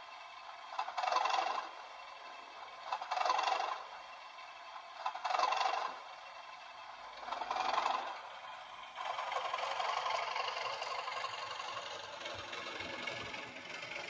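Bachmann Class 37 model locomotive's DCC sound decoder playing its long start-up sequence through the small factory-fitted speaker: a short hiss repeats about every two seconds, four times, then about nine seconds in a steady diesel engine sound takes over as the recorded engine runs up.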